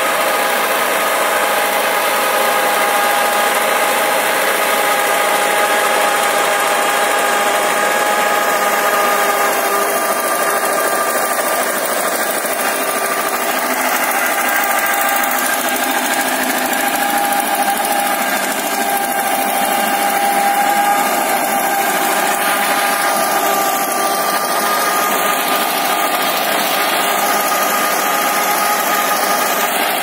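1967 Belarus tractor's diesel engine running steadily under load while driving a rear rotavator through the soil, with a steady whine of level tones over the engine noise.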